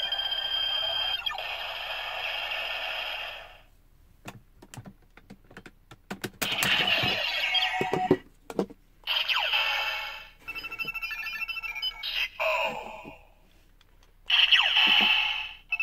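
DX Ziku Driver transformation-belt toy playing electronic standby music and sound effects through its small speaker. The jingle stops after about three seconds, a run of clicks follows, then come several short bursts of toy sound effects and a repeating beeping tune.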